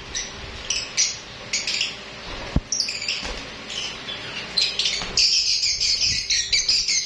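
A cage of lovebirds chirping, a stream of short high chirps that turns into dense, louder chatter about five seconds in. One sharp knock about two and a half seconds in.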